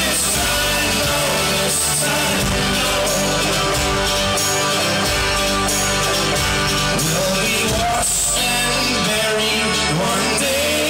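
Live folk-rock band playing loudly in an instrumental passage of a song, with horns and strings among the instruments.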